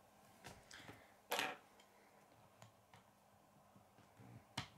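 K'nex plastic rods and connectors being handled and pushed together: a few soft clicks, a short rustle about a second and a half in, and a sharp snap just before the end.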